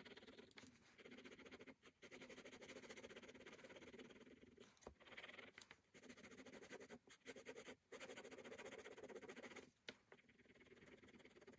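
Faint scratching of a ballpoint pen rubbing rapidly back and forth on sketchbook paper as it shades in dense strokes, with the pen lifting off briefly about five times.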